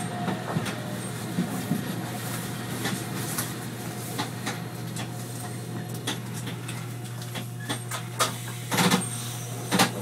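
Arakawa Line tram running along the track, heard from inside the driver's cab: a steady low hum with scattered clicks and knocks. The loudest knocks come near the end.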